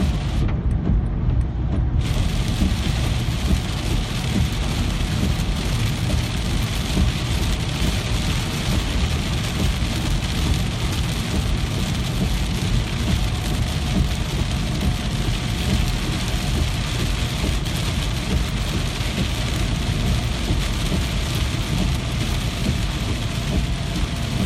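Steady heavy rain: a dense, even hiss with a strong low rumble underneath. The higher part of the hiss drops out briefly for about a second and a half near the start.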